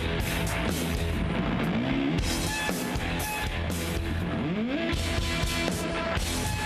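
Live rock band playing loud distorted guitar and bass over a drum kit, with a rising pitch slide about two seconds in and another near five seconds.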